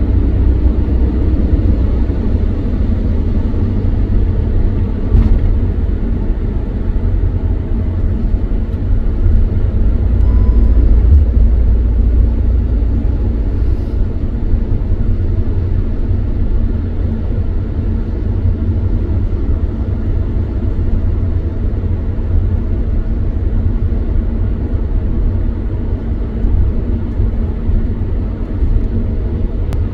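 Steady low rumble of a vehicle driving on a wet motorway, heard from inside the cabin: engine and tyre noise on the rain-soaked road.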